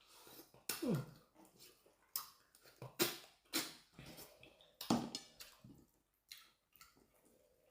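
Eating noises: irregular chewing and mouth sounds, with two short sounds that fall in pitch, about a second in and again near the five-second mark.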